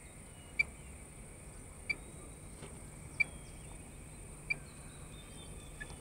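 Radio-tracking receiver beeping: five short, identical pips at one steady pitch, evenly spaced about every 1.3 seconds, over a faint steady hiss. Each pip is a pulse from a radio transmitter tag being picked up.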